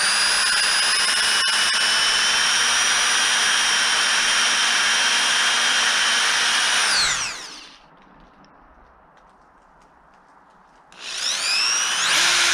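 Power drill boring pilot holes for a deadbolt: the motor runs steadily for about seven seconds, winds down and stops, then after a few quiet seconds spins up again and runs to the end.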